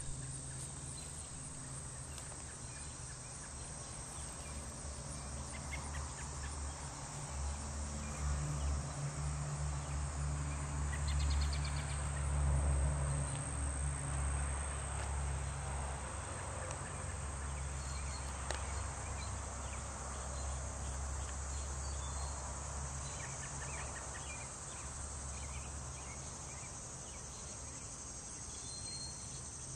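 Insects chirring steadily, a continuous high-pitched buzz. Under it a low rumble swells about a third of the way in and fades back down.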